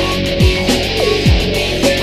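Background music with sustained tones over a deep, recurring beat.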